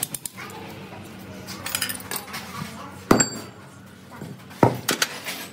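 Metal parts and tools clinking and knocking together: a few separate sharp metallic knocks, the loudest about three seconds in with a brief high ring after it, and another about a second and a half later.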